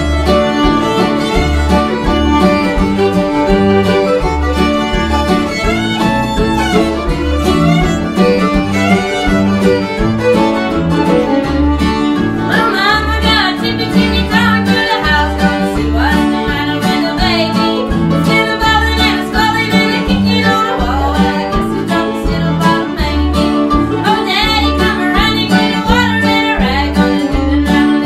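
Live bluegrass string band playing a song: fiddle leading over mandolin and acoustic guitar, with an upright bass plucking a steady beat.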